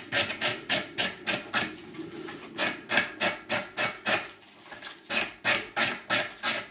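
Coarse sanding block rubbed back and forth over the wooden end of an arrow shaft, rounding and smoothing a hand-cut self nock. Quick, even strokes, about four a second, ease off briefly a little past the middle and then pick up again.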